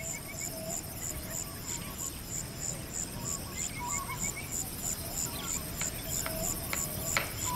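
Wetland ambience of insects and birds: a high-pitched insect pulse repeating steadily about four or five times a second, with short bird chirps and calls over a low hiss, and a few sharp clicks near the end.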